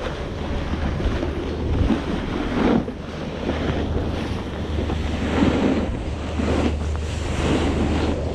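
Wind buffeting a body-worn camera's microphone while riding a snowboard downhill, with the board's edge hissing and scraping over the snow, swelling now and then as it turns.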